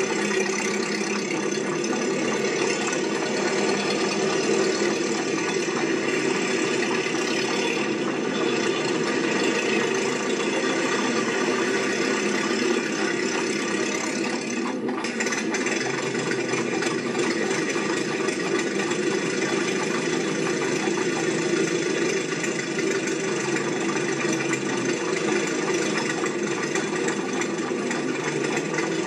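A small motor running steadily with a light rattle, unchanging throughout.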